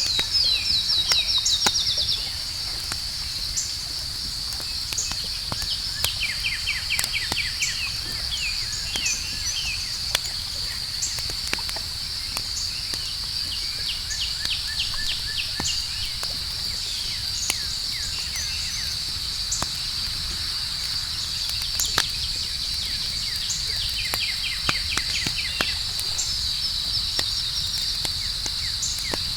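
Campfire crackling with scattered sharp pops, over a steady high chirring of crickets; bursts of rapid chirping rise over it near the start, a few seconds in, and again near the end.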